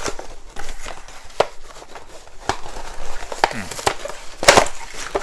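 A cardboard and plastic toy box being opened by hand: a string of sharp clicks, scrapes and crinkles of packaging, the loudest a crackling burst about four and a half seconds in.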